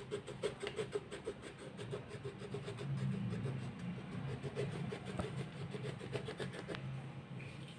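Colored pencil scratching quickly back and forth on paper, several strokes a second, over a low steady background hum.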